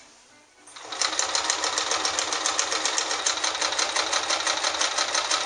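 Kenmore 158.10301 portable sewing machine starting up about a second in, then running steadily in straight stitch with a fast, even stitching rhythm as it sews through four layers of denim.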